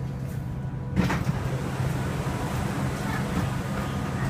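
Bangkok MRT metro train running with a steady low hum, with one sharp knock about a second in.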